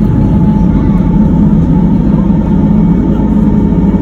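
Ferry engine running at a steady cruise, heard on board as a loud, even low drone with a faint higher hum over it.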